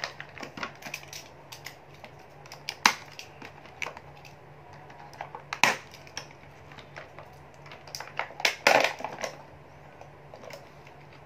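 Stiff clear plastic blister packaging crackling and clicking as it is handled and opened by hand. Sharper cracks come about three, six and nine seconds in.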